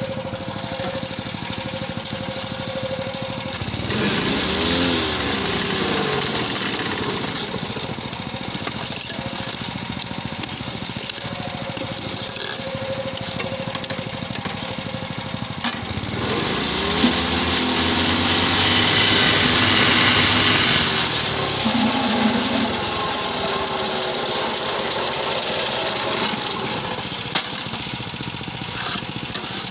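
Small petrol engine on a mobile concrete block-making machine running steadily. About four seconds in, and again from about sixteen to twenty-one seconds, it grows louder with a harsh rattle as the machine vibrates the mould to compact the concrete mix, and the engine note sags and rises again. There is a sharp knock near the end.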